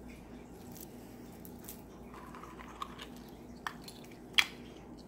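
Wet hands handling metal charm bracelets and rings over a bowl of soapy water, with soft squishing and a few sharp clicks of the metal jewelry, the loudest about four and a half seconds in.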